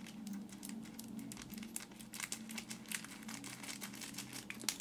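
Thin plastic bag crinkling and rustling in the hands as it is cut open with scissors: a steady scatter of small, faint crackles.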